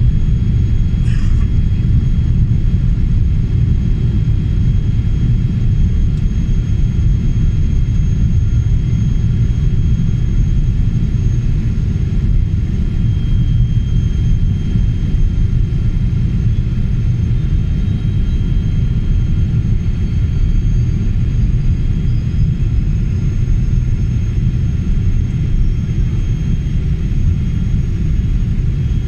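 Boeing 777 cabin noise on descent: engine and airflow sound as a steady, loud low rumble, with faint steady high whine tones. Over the second half a faint whine slowly rises in pitch.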